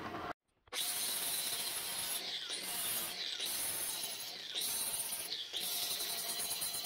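Angle grinder with a 60-grit flap disc grinding a steel hammer head, a steady grinding whine that dips briefly about once a second. It follows a short break to silence near the start.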